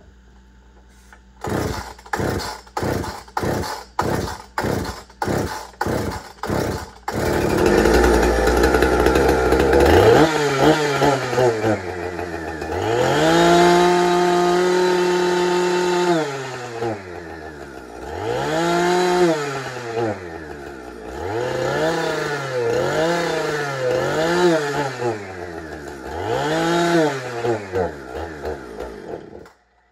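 A Husqvarna 455 Rancher two-stroke chainsaw gives a quick series of sharp knocks while being started, then catches and runs. Its revs are blipped up and down over and over, held high once, and it cuts out abruptly near the end. It bogs and won't rev cleanly, which the owner puts down to a broken primer bulb leaking fuel.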